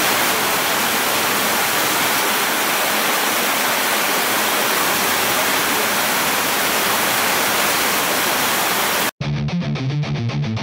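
Heavy rain pouring down in a steady, loud hiss. About nine seconds in it cuts off suddenly and gives way to rock music with electric guitar and a driving beat.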